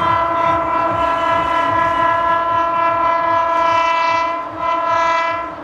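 Electric locomotive's horn sounding one long steady blast, then a short second blast after a brief break, over the low rumble of the approaching train.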